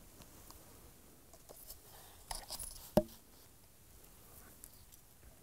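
Quiet scuffing and rustling of a person creeping on knees over dry grass and rock while stalking, with one sharp knock about three seconds in.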